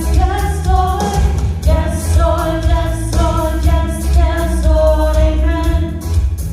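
Worship song: voices singing a melody over a band with a strong bass and a steady beat.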